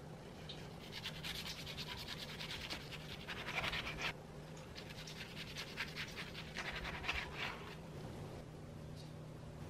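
Rapid scratching strokes in two runs with a short break between them, over a faint steady hum.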